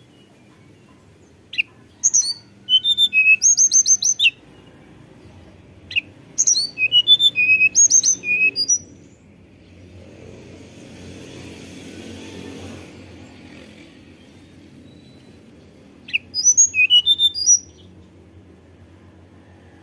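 Tledekan gunung, a blue flycatcher, singing three bouts of rapid, high, whistled notes, many of them falling sharply. The first two bouts come close together and the third comes near the end. A soft rushing noise rises and fades between the second and third bouts.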